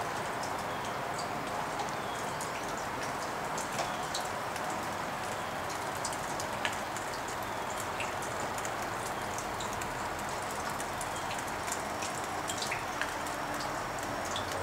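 Steady rain falling, with scattered sharp ticks of drops striking nearby surfaces.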